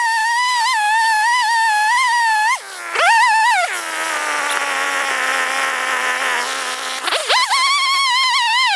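Chainsaw cutting into a large tree stump, its high whine wavering in pitch as the load changes. About three seconds in it drops to a lower, slowly sagging speed for a few seconds, then climbs back to full speed as cutting resumes.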